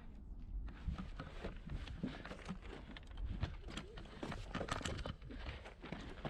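Footsteps on dirt with gear and clothing rustling, in an uneven run of soft thuds over a low rumble.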